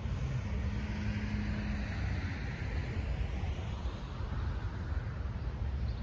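Steady low rumble from a standing or crawling freight train, with a soft hiss that swells and fades and a brief low hum in the first couple of seconds.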